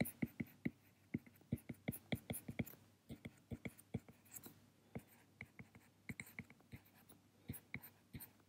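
Faint clicking taps and light scratching of a stylus writing by hand on a tablet screen: short, irregular ticks, several a second.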